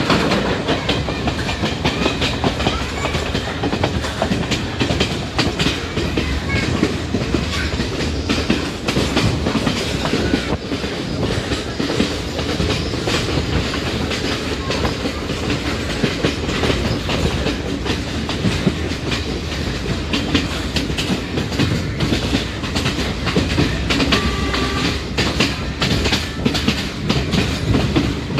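Passenger train running along the line, heard from on board: steady running noise with wheels clattering irregularly over the rail joints.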